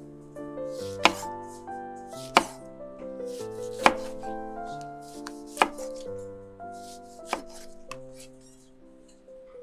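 Chef's knife slicing a lemon into rounds on a wooden cutting board: five sharp knocks of the blade hitting the board, about one every second and a half.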